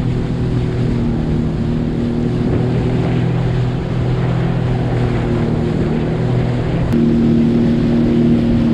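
2021 Sea-Doo FishPro jet ski running at speed: a steady engine drone over rushing water and wind on the microphone. About seven seconds in the engine note changes and gets a little louder.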